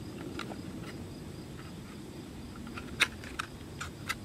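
Small clicks and taps of a handheld phone being handled and pulled apart, with one sharp click about three seconds in. Behind them, a steady outdoor background with a faint insect buzz.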